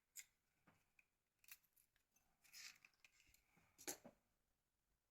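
A few faint clicks and a short scrape from small plastic and metal phone parts being handled during a teardown, the sharpest click about four seconds in.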